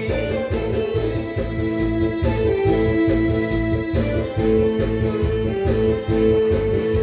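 Instrumental break in a Korean trot backing track: electronic keyboard or organ melody over a steady beat, with no voice.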